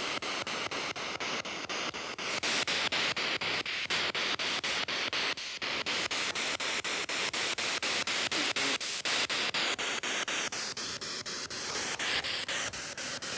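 Spirit box radio sweeping through stations: a steady rush of radio static chopped by quick, evenly spaced breaks several times a second as it jumps from channel to channel.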